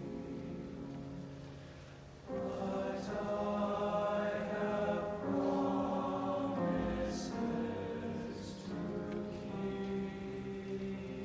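Men's choir singing held chords in harmony with piano accompaniment; the voices come in much louder a little over two seconds in, with sung 's' consonants hissing briefly later on.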